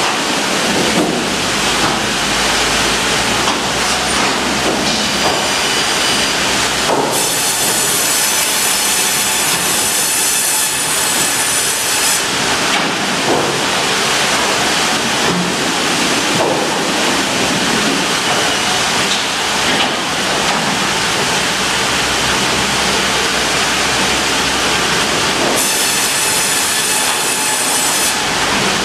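Ustunkarli tandem vertical log bandsaw and hydraulic log carriage running loud and steady as a log is fed through the saw. A high whine comes in over the noise twice, for about five seconds and then about three seconds near the end.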